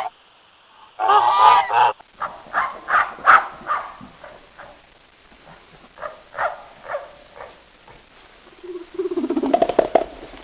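Geese honking: one long honk about a second in, then a run of short calls, and a lower, drawn-out call near the end.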